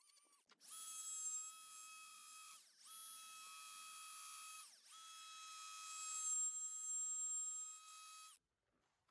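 High-pitched whine of a die grinder running in three stretches, its pitch sliding down each time it is let off.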